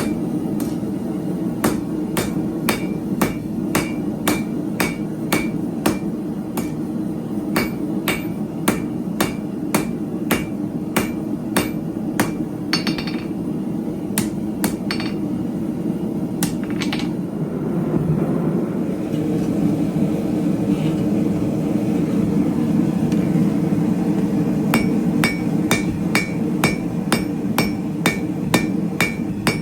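Hand hammer striking steel bar stock on an anvil, about two blows a second, many blows ringing briefly. The hammering stops for several seconds in the middle and then resumes, over a steady low rumble.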